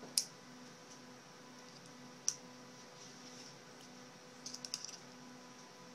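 Needle-nose pliers clicking against a small square metal plate as its cut tabs are bent back: a sharp click, another about two seconds later, then a quick cluster of light ticks near the end.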